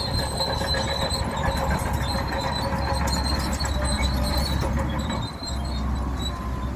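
Crawler bulldozer running under load, its engine rumbling low beneath a steady, high metallic squeal from the tracks and undercarriage. The sound dips briefly about five seconds in.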